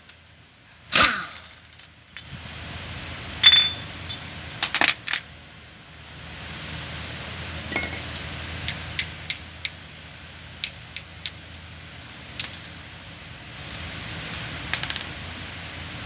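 Light metallic clinks and taps of hand tools and loose metal parts, a dozen or so scattered short strikes after one louder clank about a second in, over a steady low hum.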